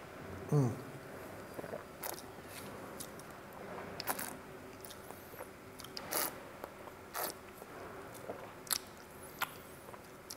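Mouth noises of red wine being tasted: scattered wet lip smacks and tongue clicks, with a short falling hum about half a second in that is the loudest moment. A faint steady hum lies underneath.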